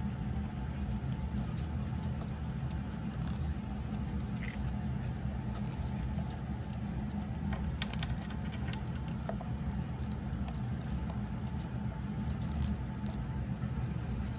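Green-cheeked conures pecking and crunching pomegranate arils with their beaks: many small, irregular clicks and nibbling sounds, over a steady low hum.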